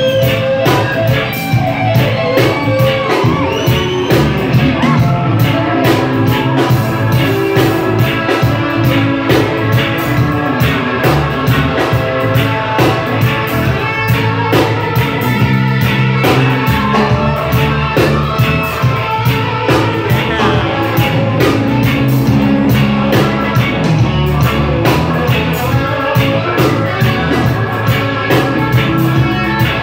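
Reggae band playing, with a steady drum beat and a strong bass line.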